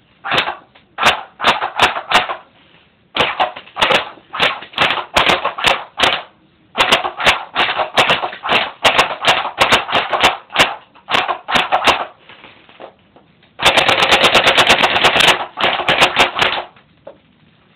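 Electric airsoft P90 (battery-powered AEG) firing strings of single semi-auto shots. About fourteen seconds in comes a full-auto burst of nearly two seconds, then a few more single shots.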